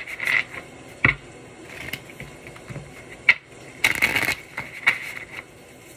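An oracle card deck being shuffled by hand: several short bursts of cards riffling and snapping, with pauses between.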